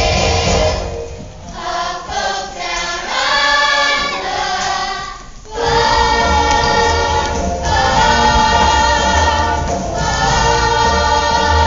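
Choir of voices singing a musical-theatre song with musical accompaniment. The voices ease off and break for a moment about five and a half seconds in, then come back in on a loud, long-held chord.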